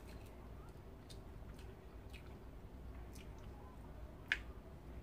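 Boiled peanuts in the shell being split open by hand and chewed: faint, scattered clicks and soft squishes, with one sharper crack about four seconds in.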